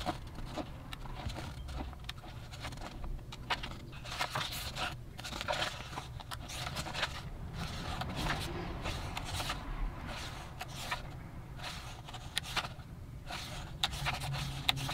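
Paper rustling as the pages of a large paperback coloring book are turned one after another, in a run of short rustles.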